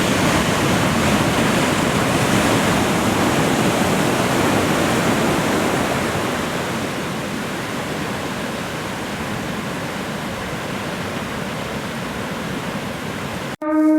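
Ocean surf: waves breaking and washing up as a steady rushing noise, a little louder in the first half. It cuts off abruptly near the end as music with guitar and keys starts.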